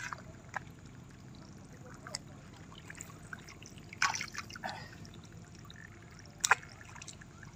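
Hands splashing in shallow muddy water while groping along the base of a fish-trap net, with two sharper splashes about four seconds and six and a half seconds in.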